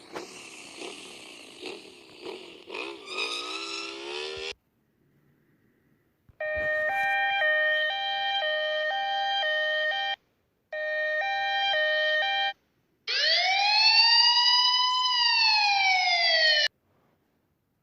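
A vehicle engine revs up with rising pitch, then cuts off. After a short pause, an emergency vehicle siren alternates steadily between two tones, breaks off briefly and resumes, then changes to a wail that rises and falls before cutting off.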